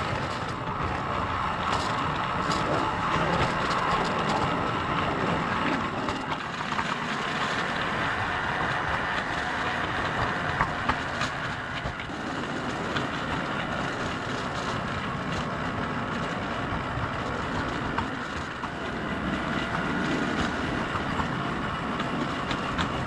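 Electric model trains running continuously on track, with a steady tone that shifts higher about six seconds in.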